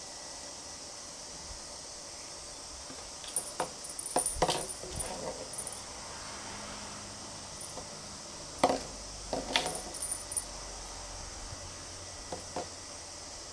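Light metallic clinks and jingles in two short clusters, about three seconds in and again about nine seconds in, with a few lone clicks near the end, over a steady background hiss.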